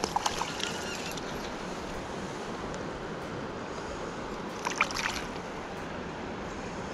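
Steady rush of a flowing river, with a few short sharp noises near the start and again about five seconds in, as the trout is handled and unhooked in the landing net.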